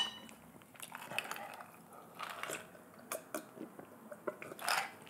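A person's quiet chewing and mouth clicks while eating spicy black bean noodles, scattered and irregular, then a short louder gulp of water from a glass near the end.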